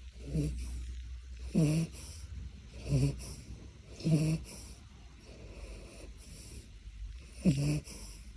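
Dog snoring in its sleep: a run of short snores about every second and a quarter, each with a breathy hiss, then a pause of about three seconds before one more.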